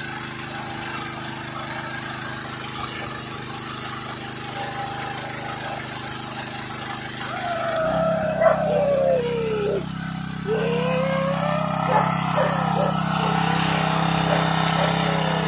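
Pressure washer motor running steadily; its hum gets deeper and louder about eight seconds in. Over it, a dog whines and howls in drawn-out falling and rising cries for a few seconds.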